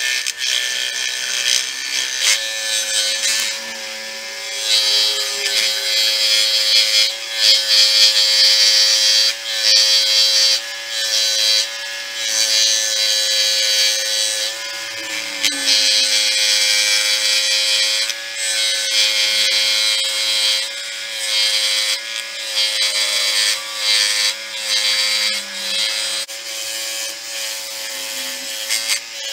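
A power tool's motor running at a steady pitch, with a rough, rasping grinding noise over it that swells and dips as the tool is pressed on and eased off the work.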